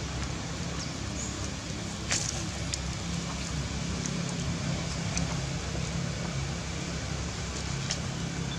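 A steady low engine hum of a motor vehicle running, with a few faint sharp ticks scattered through it.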